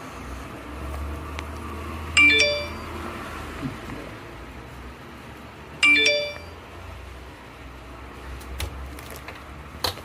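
A smartphone's message notification chime sounding twice, about two seconds in and again about six seconds in, each a short bright ding that fades quickly. Near the end come a few sharp clicks as the phone is handled.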